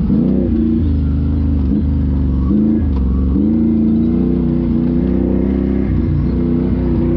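Can-Am Renegade XMR 1000R ATV's V-twin engine running under changing throttle, its pitch rising and dipping several times.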